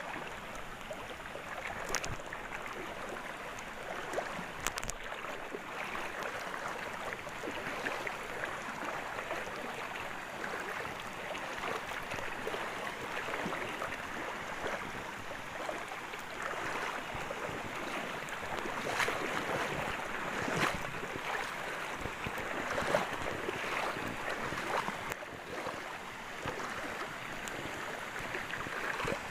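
Steady rush of a fast-flowing rocky upland river, with a few short knocks or clicks over it.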